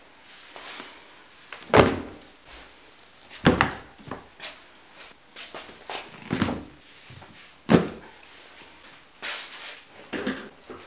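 Stacks of hardcover books set down onto piles on a wooden floor: four loud thuds a second or two apart, with softer knocks and the slide of covers between.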